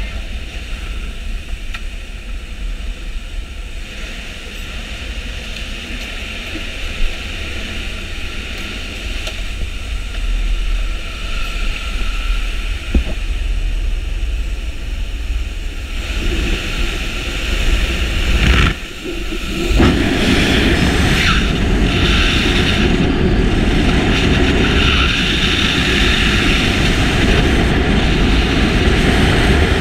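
Steady drone of the jump plane's engines inside the cabin. About 16 seconds in, loud rushing wind takes over as the skydiver exits, with a brief drop near 19 seconds, then steady freefall wind buffeting the helmet-mounted camera.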